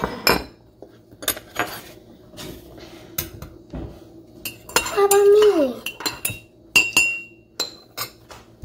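Metal teaspoon clinking against a ceramic mug of tea as it is stirred: a series of sharp clinks with a short ring, ending with the spoon laid on a ceramic saucer near the end. About five seconds in, a brief voice sound with a falling pitch is heard over it.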